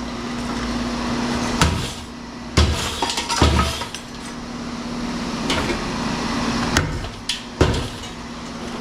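Scattered metal clanks and knocks, about six, as scrap metal parts are handled and knocked apart, over a steady background hum.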